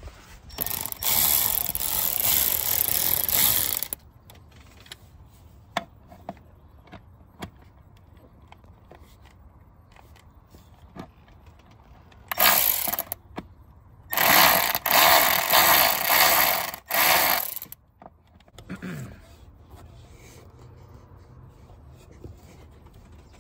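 Cordless electric ratchet running in bursts: one long run of about three seconds near the start, then a short burst, then several quick bursts in a row.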